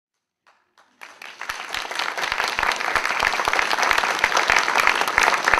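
Audience applauding: after a second of near silence the clapping starts suddenly and builds into steady, dense applause.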